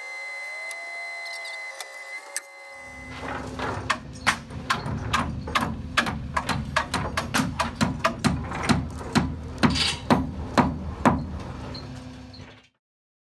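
A framing hammer driving nails into wooden truss framing: sharp blows in quick, irregular succession, about two a second, over a low steady engine hum. Before the hammering starts, a short mechanical whine rises in pitch.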